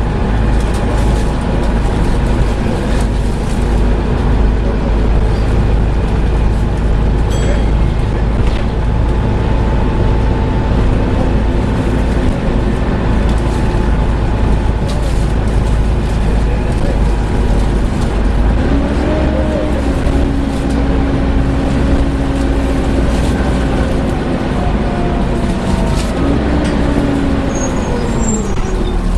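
Volvo B7TL double-decker bus heard from on board, its engine and radiator cooling fan running with a loud, steady hoovering drone. About two-thirds of the way through, a tone climbs and holds as the engine pulls, then falls away near the end.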